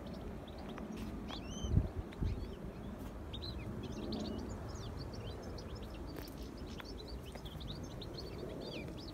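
European goldfinches twittering in a tree: many short, quick high chirps, growing denser from about three seconds in. Two low thumps about two seconds in.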